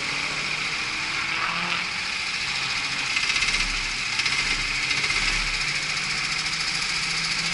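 Rental go-kart's small single-cylinder engine running steadily, its pitch shifting up and down a little.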